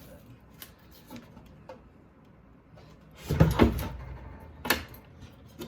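Parts of a dismantled portable ice maker being handled. A few light clicks are followed about three and a half seconds in by a cluster of knocks and a clunk, then a single sharp click near the end.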